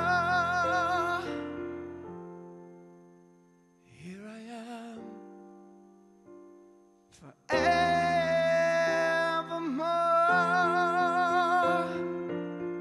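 Music with slow, held chords and vibrato. The first chord fades away over the first couple of seconds, a short soft note sounds about four seconds in, and a loud sustained chord enters about seven and a half seconds in, then fades near the end.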